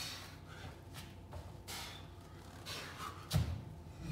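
A man breathing hard with short, sharp breaths during burpees, and one dull thud a little over three seconds in as his feet land on the exercise mat from the jump back to standing.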